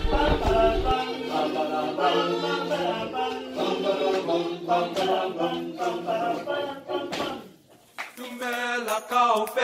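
A group of voices singing together in harmony without instruments. The singing breaks off briefly about seven seconds in, then starts again.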